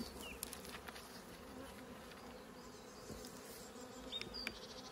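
Honeybees buzzing steadily around an opened hive, a low even hum. A few brief high chirps come through near the start and near the end.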